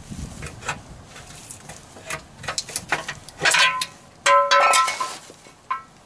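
Metal tools clicking, scraping and clinking against the engine oil pan as the gasket seal is cut and the pan is worked loose, with two louder ringing metallic clanks about three and a half and four and a half seconds in.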